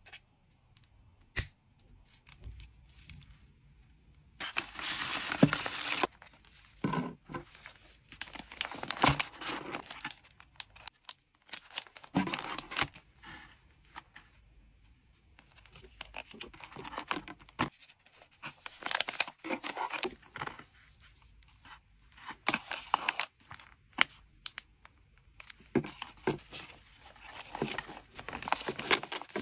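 Trading cards being hand-packed: plastic packaging crinkling and tearing in irregular bursts, with scattered sharp taps and clicks.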